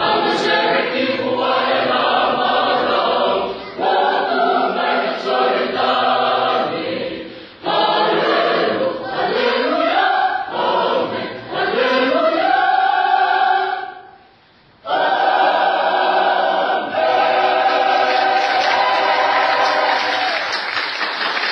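Youth church choir singing a choral piece in Fijian in parts, in phrases with rising slides, pausing briefly and then holding a long final chord. Applause begins just as the chord ends.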